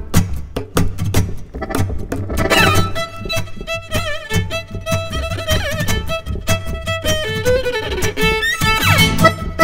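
Live fiddle, accordion and acoustic guitar trio playing a fast tune. The fiddle carries the melody with vibrato and sweeping slides over accordion chords and rhythmic guitar strumming.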